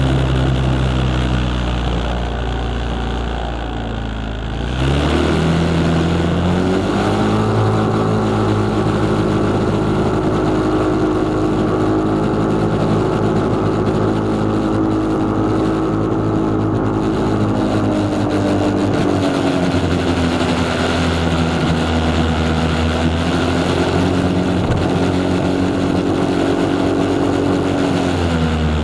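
Yamaha Cygnus X scooter's single-cylinder four-stroke engine heard from the onboard camera: running low and steady, then rising in pitch about five seconds in as the scooter accelerates. It holds a steady higher pitch at cruise, eases off slightly about two-thirds of the way through, and drops again near the end.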